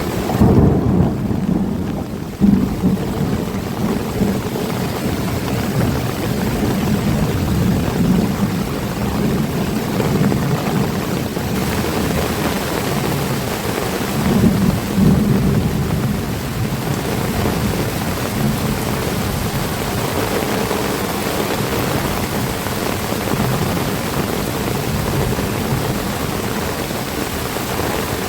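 Heavy rain falling steadily, with deep rumbling surges near the start, about two and a half seconds in, and again about halfway through.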